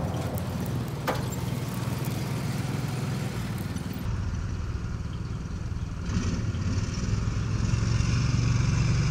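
John Deere Gator utility vehicle's engine running steadily as it drives off a flatbed trailer, with a single clank about a second in. The engine hum grows louder near the end.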